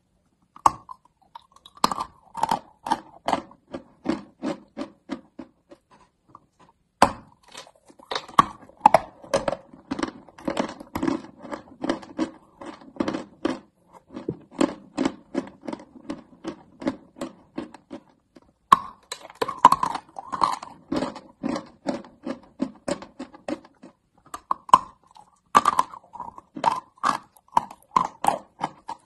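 Large lumps of crunchy white chalk being bitten and chewed. A sharp crunch marks each fresh bite, four times, and each bite is followed by steady crunchy chewing at about three chews a second.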